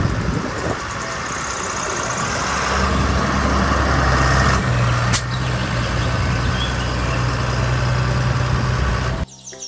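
A large four-wheel-drive farm tractor's diesel engine running as the tractor drives on tarmac, a steady low hum that grows louder over the first few seconds and cuts off suddenly near the end.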